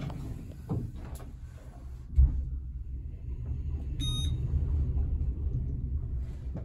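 Delta elevator car's door closing with a knock, then the car starting off with a sharp thump and running down with a steady low rumble. A short electronic beep sounds about four seconds in, as the car passes a floor.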